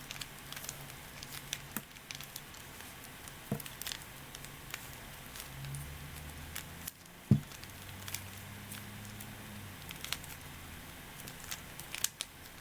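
Plastic mirror cube being twisted by hand: irregular quick clicks and rattles as its layers turn, with one louder knock about seven seconds in.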